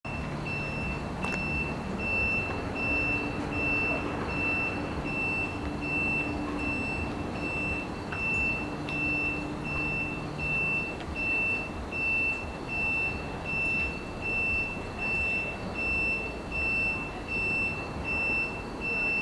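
A high electronic warning beep repeating about once a second, over a steady low rumble; a lower hum sounds through the first half and stops about eleven seconds in.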